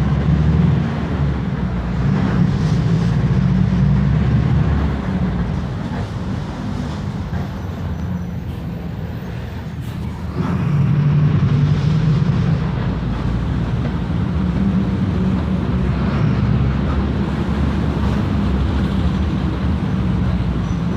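Mercedes-Benz OF 1519 bus's four-cylinder diesel engine running under way. It eases off about five seconds in and pulls hard again from about ten seconds in.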